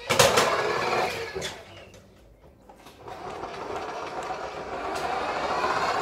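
Barbie remote-control convertible's small electric drive motor whirring, with wheels rolling on a wooden floor. It runs for about a second and a half, stops briefly, then starts again about three seconds in and grows steadily louder.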